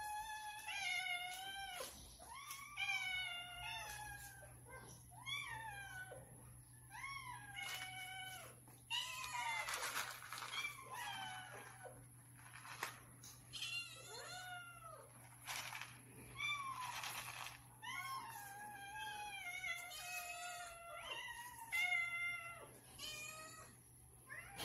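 Several house cats meowing over and over, one call after another about once a second and sometimes overlapping, each meow rising and falling in pitch: hungry cats asking for food.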